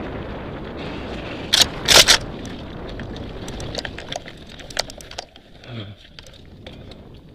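Full-suspension mountain bike riding fast down a rough dirt and stone trail: a steady rush of wind and tyre noise with rattling from the bike. There are two loud clattering knocks about one and a half and two seconds in, then scattered ticks and clicks, and the rush eases in the second half.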